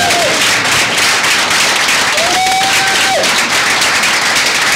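Audience applauding, a dense steady clapping, with a held pitched call over it about two seconds in that falls away after about a second.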